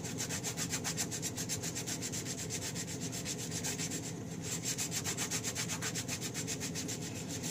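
Fast back-and-forth hand scrubbing or sanding on a small part, about eight strokes a second, with a short pause about four seconds in.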